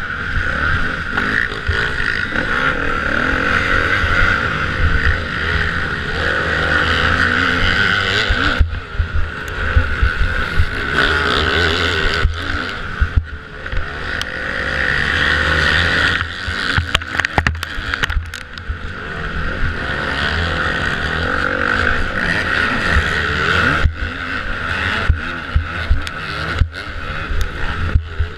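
A Kawasaki motocross bike's engine heard from onboard, running hard at high revs and falling away briefly several times as the throttle closes for corners, with wind on the microphone and knocks from the rough track.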